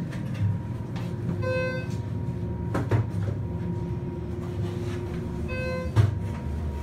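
Inside a Schindler 330A hydraulic elevator cab: a steady low hum, with two short electronic beeps about four seconds apart. A sharp knock about six seconds in is the loudest moment.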